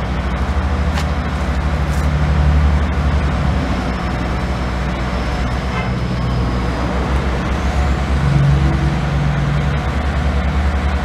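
Steady low engine rumble of an idling motor vehicle, swelling twice.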